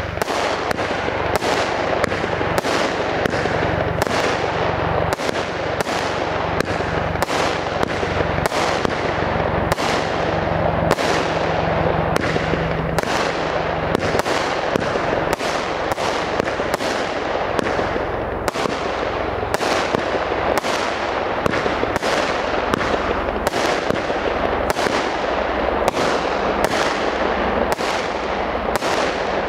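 Weco 25 Carat gold-effect firework battery firing shot after shot, a sharp bang about once a second over a continuous hiss.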